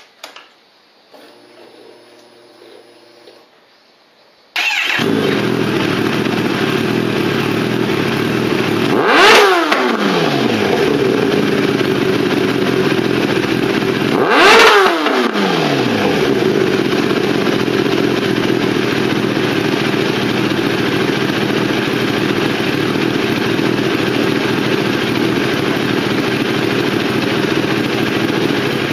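Kawasaki sportbike's inline-four engine through an aftermarket titanium slip-on exhaust. After a faint whirr, it starts about four and a half seconds in and idles. It is blipped twice about five seconds apart, each a sharp rise and fall in pitch, then settles back to idle.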